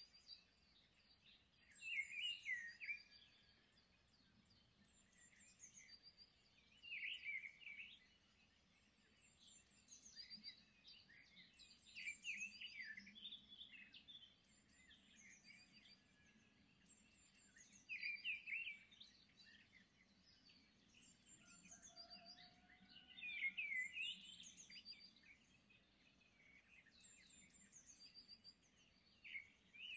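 Faint chirping and twittering of small songbirds, in short repeated phrases with a louder burst every few seconds.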